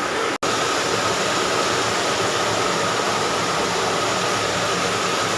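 Waterfall rushing: a steady, even hiss of falling water, cut off for an instant about half a second in.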